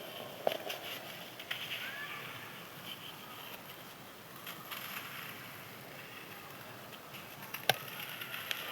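Crispy sand-cement chunks crumbling, a steady crackle with a sharp crack about half a second in and a louder one near the end.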